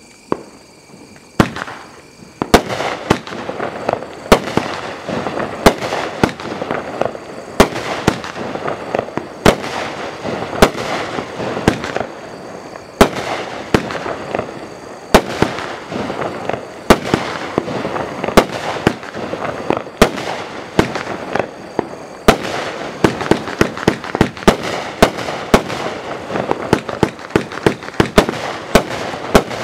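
A 36-shot, 1-inch consumer fireworks cake firing. After a first shot about a second and a half in, it fires a rapid, uneven string of sharp reports with crackling between them.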